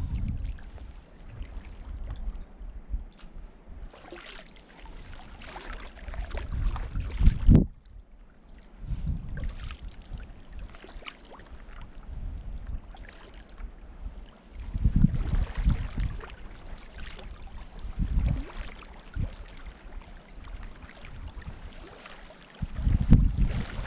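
Kayak running a small river rapid: flowing water washing around the hull, with paddle strokes in the water and low rumbling swells every few seconds.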